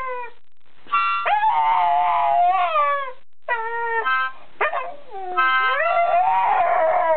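Staffordshire Bull Terrier howling along to a harmonica: long howls that swing up and then sag in pitch, with short steady harmonica chords sounding between them. The dog is singing to the harmonica.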